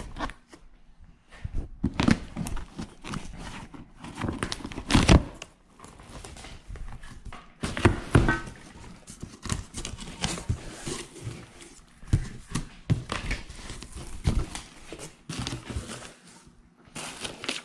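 A shipping package being unboxed by hand: crinkling, tearing and rustling of the packing material with knocks of the contents being handled, in irregular bursts.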